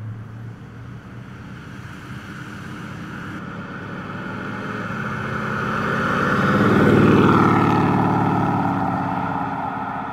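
1956 Ford F100 pickup with a 350 V8 driving past: the engine and tyre noise grow louder as it approaches, peak about seven seconds in as it passes, then fade as it pulls away.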